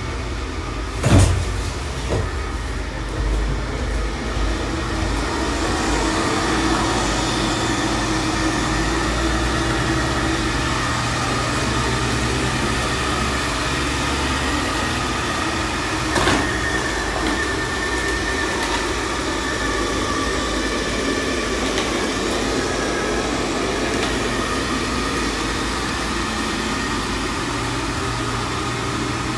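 Xiaomi Mi Robot Vacuum-Mop Essential running, a steady motor and suction hum, with a sharp knock about a second in and another about halfway through.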